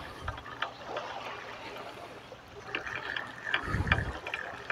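Small waves lapping on a sandy lakeshore, with a few light clicks from a spinning reel as a hooked carp is reeled in. A brief low rumble about four seconds in.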